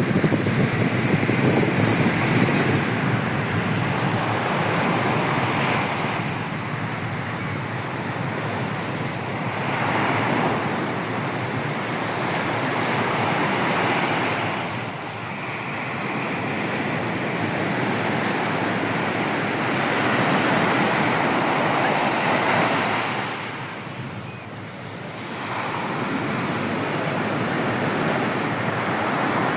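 Rough sea surf breaking and washing onto the beach in a steady roar that swells and ebbs every few seconds, with wind buffeting the microphone.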